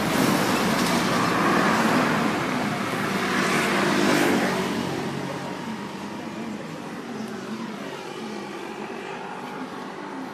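Road traffic: a motor vehicle passing close by, loud for the first four seconds or so and then fading away into a steady traffic rumble.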